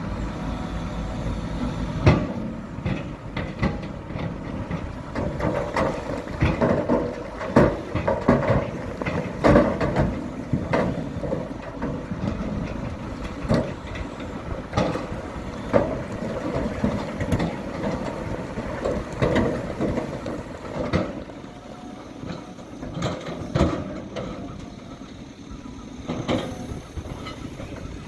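Diesel engine of heavy earthmoving machinery running, with many irregular metallic clanks and knocks as it works soil. The knocks come thickest through the first two-thirds and thin out near the end.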